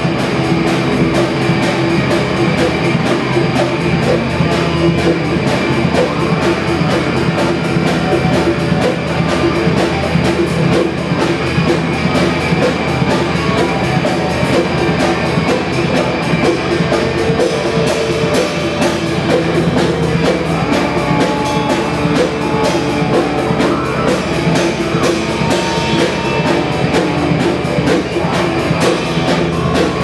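Live band playing rock music: electric guitar over a drum kit and keyboard, at a steady loud level.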